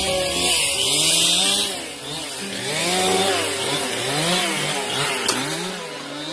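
Chainsaws revving up and down again and again, several overlapping, with the pitch climbing and dropping every second or so.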